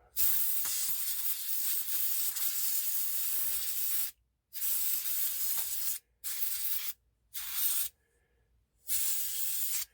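Can of compressed air spraying into a folding knife's handle to blow out dirt that a Q-tip could not reach. First one long blast of about four seconds, then four shorter ones with short pauses between.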